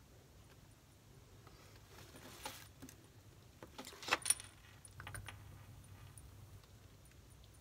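Faint clicks and a short rattle of small hard objects being handled, the sharpest cluster about four seconds in.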